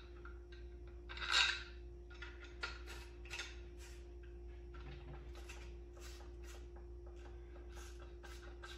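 A hand driver threads the rear action screw into a rifle chassis. There is a knock about a second and a half in, then a long run of faint, light ticks, about two or three a second, as the screw is turned, over a steady low hum.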